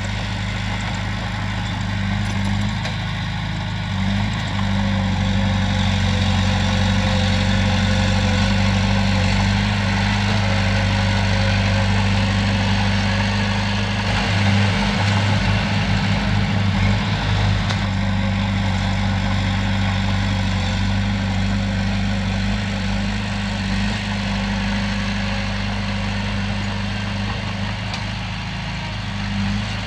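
Komatsu bulldozer's diesel engine running steadily, with a brief rougher, uneven stretch about halfway through.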